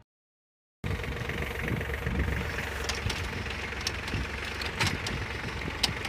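Tractor engine running while a tractor-mounted potato digger works through the soil: a steady mechanical noise with scattered clicks and rattles, starting about a second in after a moment of silence.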